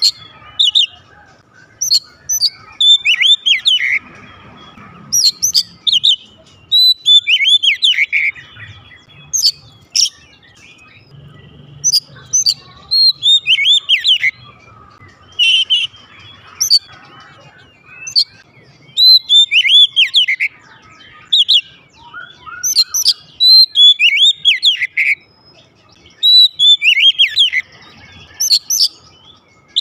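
Oriental magpie-robin singing loudly in repeated bursts: clear arching whistled notes mixed with sharp, high, clicky notes, phrase after phrase with short pauses between.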